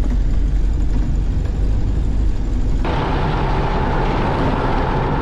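Ural-4320 military truck driving over rough ground: a steady, heavy low rumble of engine and running gear. About three seconds in, the sound cuts abruptly to a louder, brighter rush of wind and road noise with a steady high hum.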